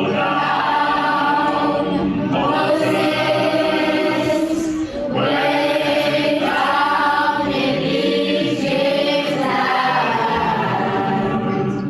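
A choir singing a slow melody in long held notes, with a short breath between phrases about five seconds in.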